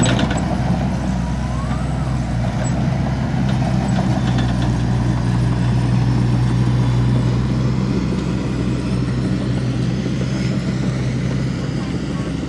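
Diesel engine of earthmoving machinery running steadily at an even speed, easing off slightly near the end.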